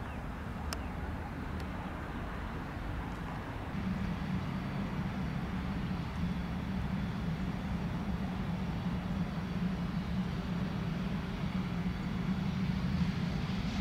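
Cessna Citation CJ2+ business jet's twin Williams FJ44 turbofans running up for takeoff: a steady jet rumble that grows louder about four seconds in, with a whine building near the end as the jet rolls closer.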